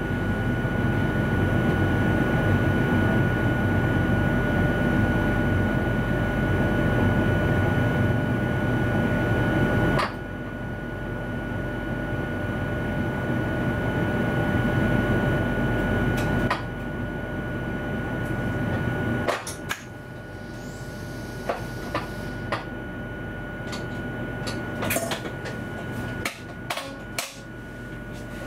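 Inside a passenger train's driving cab: steady running noise with a constant high tone, which drops away in two steps as the train comes to rest. Then a series of short clicks and knocks as switches and cab fittings are handled.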